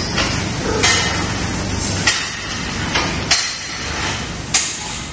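Sows knocking against steel gestation stalls and sheet-metal feed troughs while they eat, about six sharp metallic clanks at irregular intervals, over a steady low rumble.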